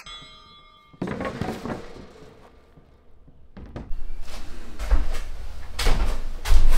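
A cordless circular saw spins down briefly. Then comes indoor handling noise of a wooden shelf board with knocks and several low thumps, the heaviest near the end.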